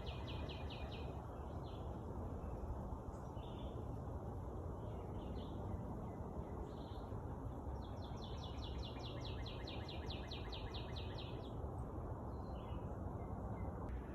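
Wild songbirds singing: a fast trill of evenly repeated high notes lasting about two seconds, heard at the start and again about eight seconds in, with a few short single chirps between. A steady low background rumble runs under it.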